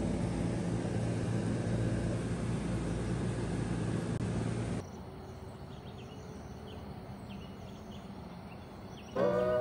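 Steady outdoor background hum with a low drone, which drops at about five seconds to quieter outdoor ambience with faint scattered bird chirps. Acoustic guitar music comes in just before the end.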